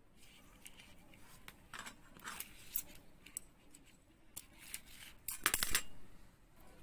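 Scissors snipping off the leftover thread of beadwork: a quick cluster of sharp snips about five and a half seconds in, the loudest sound here. Before it come scattered light clicks of beads being handled.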